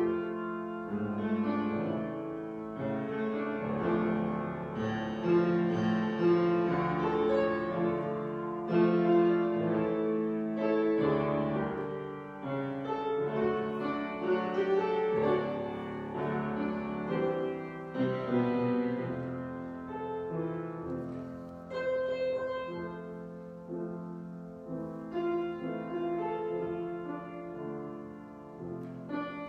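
Slow instrumental keyboard music: held chords under a moving melody line.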